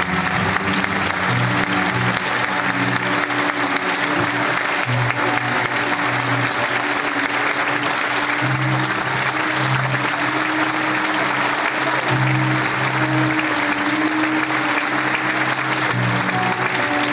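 Theatre audience applauding steadily, with music playing underneath in held low notes that change every second or so.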